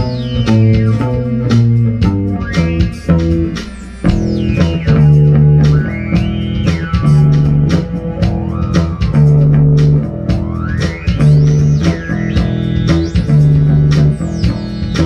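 Funk band music without vocals: an electric bass line under a steady beat, with synthesizer notes that slide up and down in pitch several times.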